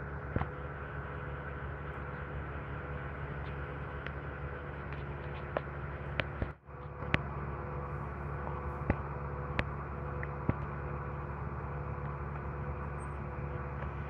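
An engine running steadily at idle, a low even hum with a few light clicks and ticks over it. The hum drops out for a moment about halfway through.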